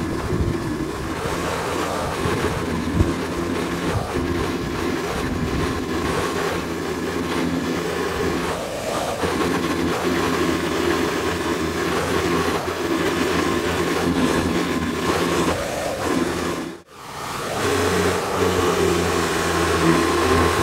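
Pressure washer running steadily under load, driving a rotary surface cleaner that sprays jets of water across roof tiles: a constant drone with a hiss of spray. The sound cuts out abruptly for a moment about three-quarters of the way through, then resumes.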